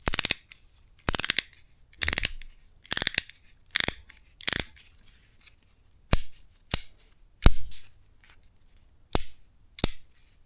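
Ratcheting box wrench clicking as the handle is swung back and forth: about eleven short bursts of rapid ratchet clicks, roughly one a second, with a couple of longer pauses.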